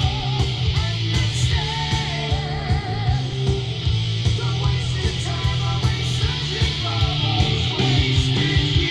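Rock music with distorted electric guitar, bass, drums keeping a steady beat and a singing voice.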